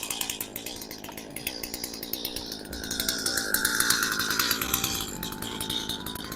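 Gas two-stroke chainsaw running, recently started with the choke and warmed up. It grows louder and higher for a second or so around the middle, then settles back.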